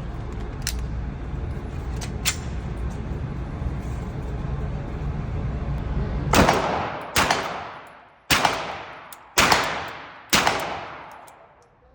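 Five shots from a Canik Mete 9mm pistol, fired at an uneven pace about a second apart in the second half, each ringing on and fading before the next.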